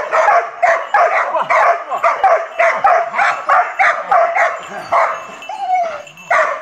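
A dog barking rapidly and repeatedly, about three barks a second, breaking off briefly near the end.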